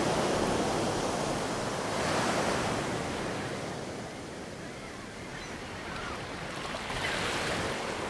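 Ocean surf washing, swelling and easing every few seconds as waves break.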